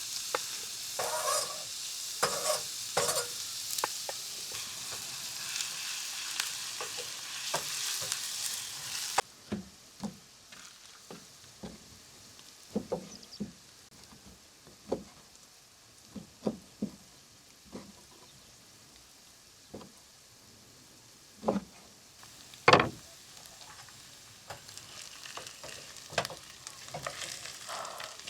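Food sizzling in a frying pan with clicks and scrapes of a utensil stirring it. The sizzle cuts off abruptly about nine seconds in, leaving scattered taps and knocks of utensils and cookware, the loudest a sharp knock a little past twenty seconds.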